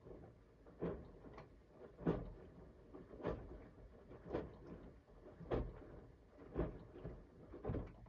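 Siemens iQ800 front-loading washing machine mid-wash: the drum turning and the wet laundry dropping with a soft thud about once a second.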